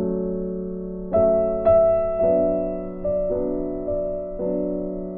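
Soft background music on piano, with a chord or note struck every half second to a second and each one fading slowly.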